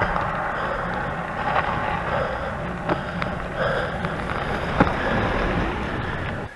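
Wind and tyre noise from a bicycle on the move, a steady rushing rumble with a few sharp clicks and rattles from the bike. It cuts off suddenly near the end.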